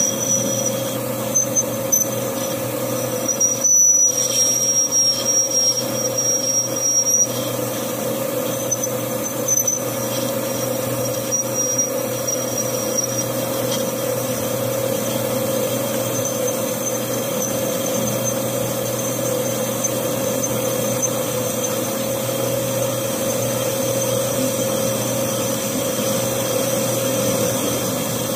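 Metal lathe running steadily while a cutting tool turns down the face of a steel motorcycle magneto housing, curling off chips. A steady hum runs under it, and a thin high whine comes and goes during the first half.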